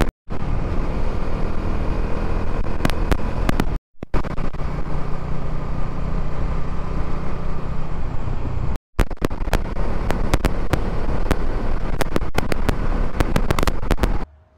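Motorcycle being ridden at road speed, its engine running steadily under a rush of wind and road noise, with frequent sharp clicks. The sound drops out briefly twice.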